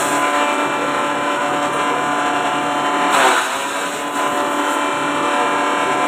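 Small forage (grass) chopper driven by a half-horsepower electric motor, running with a steady whine. About three seconds in, a handful of grass stalks is fed in and chopped with a brief burst of noise.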